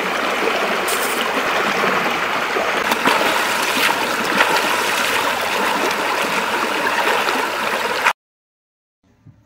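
Shallow stream rushing over rocks, with a few splashes as a man bathing in it scoops water over himself. The rush cuts off abruptly about eight seconds in.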